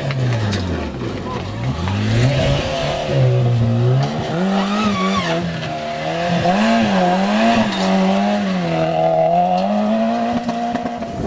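Peugeot 106 rally car's engine revving hard on a gravel stage. The revs fall and climb several times in the first few seconds, then stay high with a wavering pitch as the car slides through the corner.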